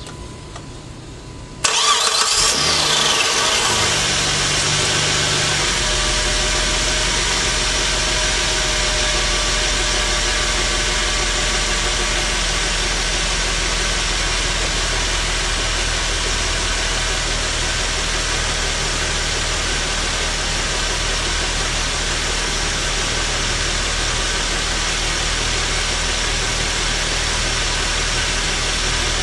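Chrysler 2.7-litre V6 engine starting: it cranks and catches suddenly about two seconds in, with a brief whine, then settles within a few seconds into a steady idle.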